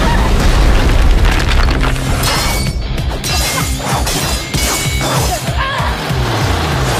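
Fight sound effects of stone smashing and crashing and sword blades clashing, one impact after another, over a dramatic music score.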